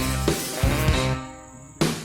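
Background rock music with electric guitar and drums; it drops back to a brief lull about a second in, broken by a single hit shortly before the end.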